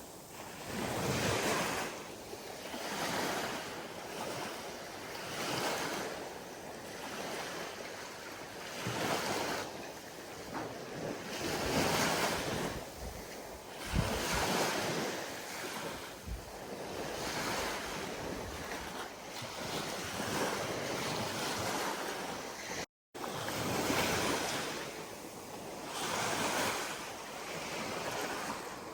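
Ocean waves breaking and washing ashore, the surf swelling and easing every two to three seconds, with wind buffeting the microphone. The sound cuts out completely for a split second about two-thirds of the way through.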